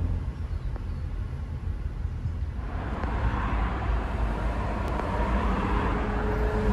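Road and engine noise inside a moving car, first a VW Beetle cabriolet. About two and a half seconds in, it changes to the cabin of an L322 Range Rover on the move, with a hissier road and wind noise.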